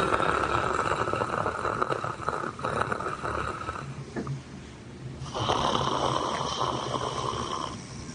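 A man snoring like a lion: two long snores, the first about four seconds and the second about two and a half, with a short pause between. The doctor puts this kind of snore down to enlarged tonsils and a relaxed soft palate falling back while the nose is blocked.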